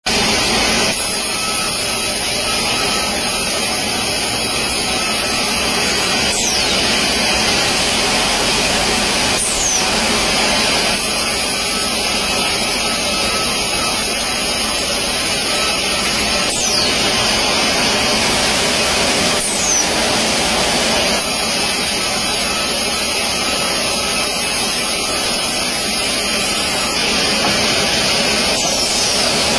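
Vertical band sawmill running and ripping a squared log on its carriage: a loud, steady whir of blade and machinery, with a few brief high squeals that slide downward.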